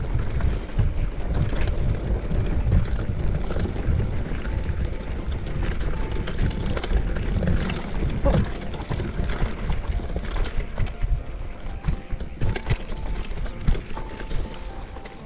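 Mountain bike descending a dirt trail: wind buffets the camera microphone over a constant low rumble, with irregular knocks and rattles as the bike goes over bumps.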